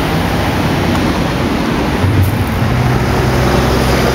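Steady road traffic noise from cars passing on a busy city boulevard, with a low engine hum that grows stronger about halfway through.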